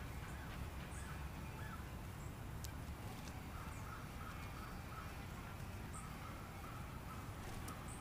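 Distant birds calling over a faint, steady low rumble: a run of short repeated calls through the middle, with a few brief high chirps scattered throughout.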